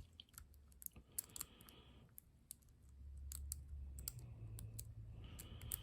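Irregular small clicks of a lock pick working the pins inside a Ruko ASSA Abloy 2 lock.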